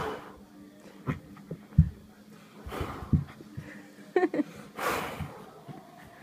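Puppy snuffling and huffing up close, with two breathy swells and a short squeaky burst just after the middle, amid soft thumps on the carpet.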